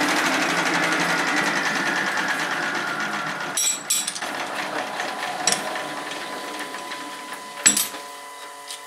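1K62 lathe running down after a nut has been tapped, its steady machine noise fading slowly away. Sharp metallic clicks and clanks come from the tap and tap wrench being handled at the chuck, a cluster about three and a half seconds in and the loudest near the end.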